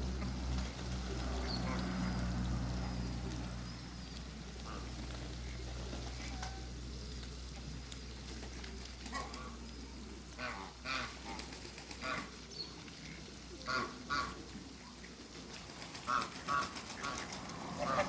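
Ducks quacking: short calls in quick clusters through the second half. A low steady hum runs under the first few seconds.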